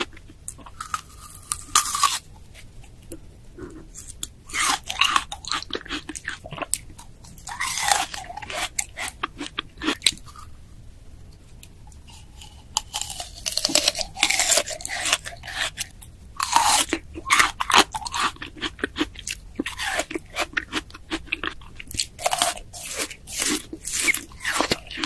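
Close-miked biting and chewing of crisp pear, wet crunching that comes in clusters with short pauses between bites.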